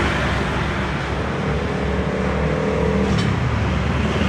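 Busy road traffic passing close by: motorcycles, a car and a truck engine running, with a steady low rumble. An engine hum holds steady for about two seconds in the middle.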